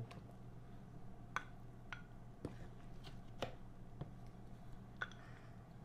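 Light scattered taps and clicks of a wooden serving spoon against a plastic mixing bowl and small glass bowls as salad is dished out, about seven short knocks spread through, over a faint steady hum.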